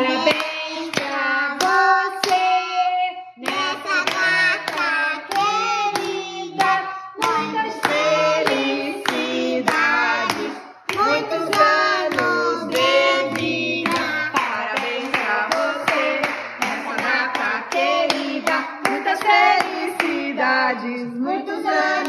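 A group of adults and children singing a birthday song together, clapping their hands in time.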